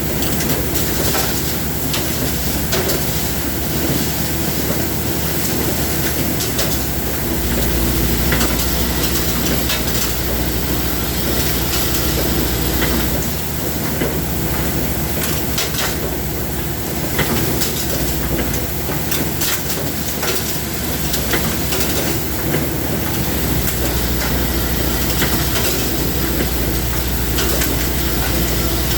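Machinery running steadily: a low hum under a dense noise scattered with irregular clicks and crackles.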